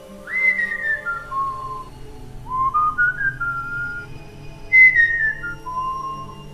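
A person whistling a slow tune in three short phrases, each sliding between notes. The first and third phrases start high and step downward, the middle one climbs. Faint steady background music lies underneath.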